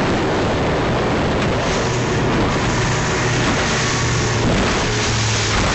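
Motorboat running at speed across open water: a steady engine hum under continuous rushing wind and water noise.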